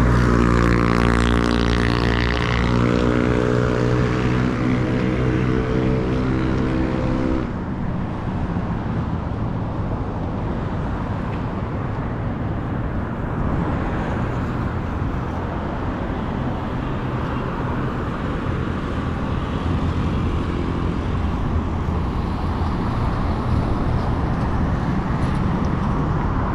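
Road traffic. A vehicle engine runs close by with a steady hum for about the first seven seconds, then the sound changes suddenly to a steady wash of traffic noise.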